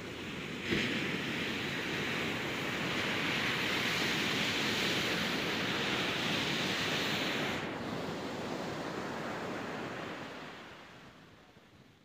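Steady rush of ocean surf mixed with wind on the microphone, with a short thump just under a second in; the rush drops in level about two-thirds of the way through and fades near the end.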